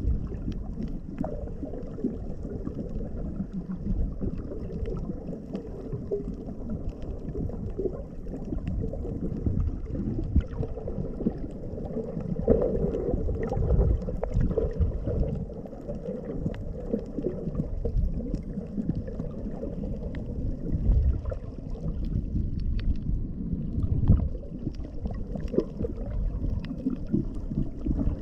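Underwater ambience heard through a GoPro Hero6's microphone just below the surface: a muffled, rumbling wash of moving water that swells and ebbs, with scattered faint ticks.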